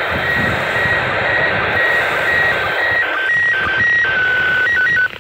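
ISS slow-scan TV signal played through a handheld FM radio's speaker: a loud hiss with short beeping tones repeating about twice a second, coming closer together in the second half. About five seconds in the signal cuts off abruptly.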